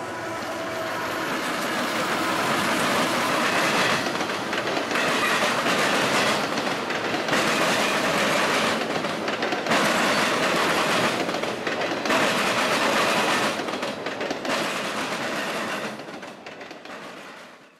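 Freight train of autorack cars rolling past, steel wheels clacking rhythmically over the rail joints with a steady rumble of the cars. The sound swells over the first couple of seconds and drops away at the very end.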